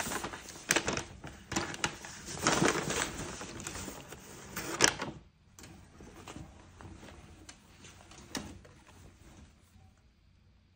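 Brown kraft-paper shopping bag crinkling and rustling as it is handled and a shirt is pulled out, with a sharp crackle about five seconds in. After that comes softer, fainter rustling of the folded shirt's fabric.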